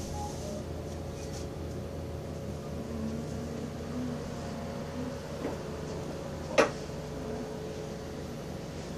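Steady low hum of room noise, with one sharp click about two-thirds of the way through.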